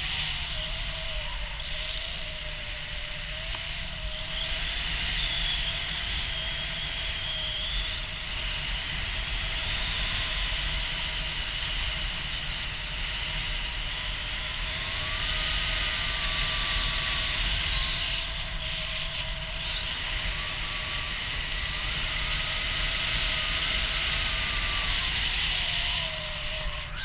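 Steady rush of wind over the microphone in paraglider flight, with a deep buffeting rumble and thin whistling tones that waver slowly in pitch.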